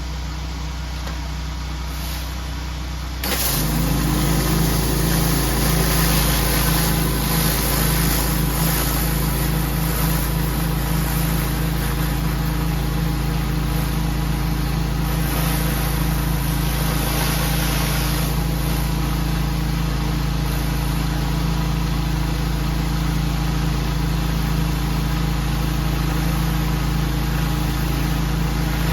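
Gas-engine pressure washer running steadily. About three seconds in it gets louder, its pitch rises briefly and settles, and a steady high hiss joins the hum.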